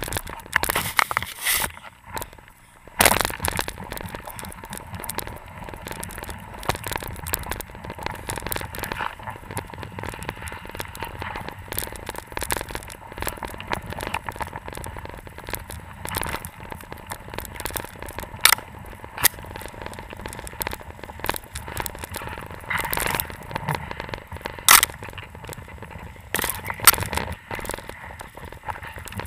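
Hok skis gliding and crunching through deep fresh snow, with irregular sharp cracks and crackles of snow-laden branches brushing past, the loudest about 3 s in and again near the end.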